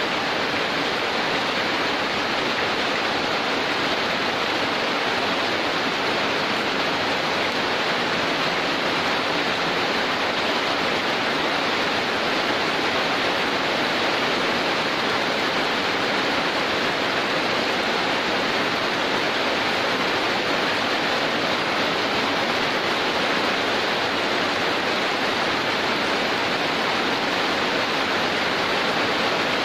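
Heavy rain falling in a steady, even downpour, a dense hiss with no single drops or thunder standing out.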